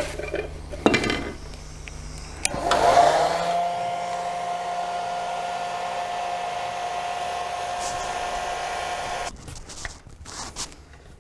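Heat gun switched on about two and a half seconds in, its fan spinning up to a steady whine with a rush of air, running for about six seconds and then cut off suddenly; a few handling knocks come before and after. It is warming the fuel tank panel so the metal moves more easily and the paint is protected from cracking.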